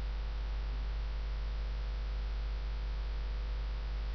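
Steady electrical mains hum with a low hiss, the background noise of the recording microphone.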